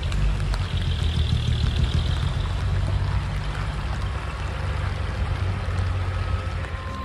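Large truck's diesel engine running with a steady low rumble, under an even hiss of water noise.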